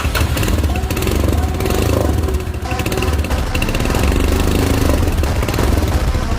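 Motorcycle engine running steadily through its exhaust, with a brief dip in level about two and a half seconds in.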